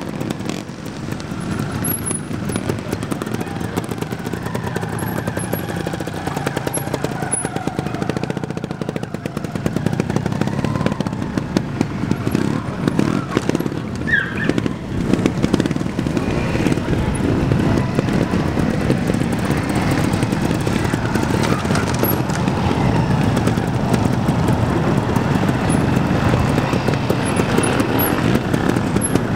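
Trials motorcycle engine running at low revs with a rapid popping beat from the exhaust, and throttle blips as the bike is ridden through the section. It gets louder from about a third of the way in.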